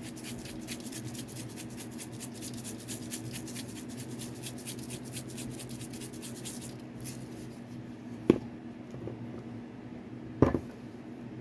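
Seasoning shaker shaken over vegetables: rapid rattling shakes, several a second, for about seven seconds, then two sharp knocks about two seconds apart. A steady low hum runs underneath.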